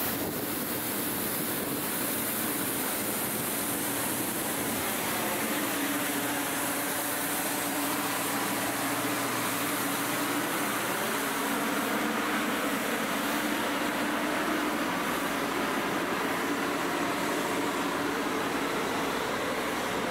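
City street traffic heard as a steady rush of passing vehicles, with a steady low hum underneath and engine tones swelling and fading through the middle.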